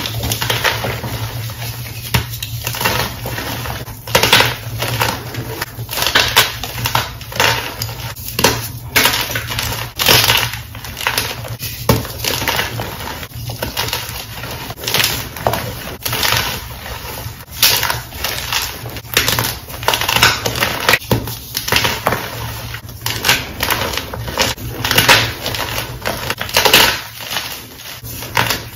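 Soft white chalk blocks crunching and crumbling as hands squeeze and break them apart in a heap of chalk powder. The crunches are dry, sharp and irregular, several a second.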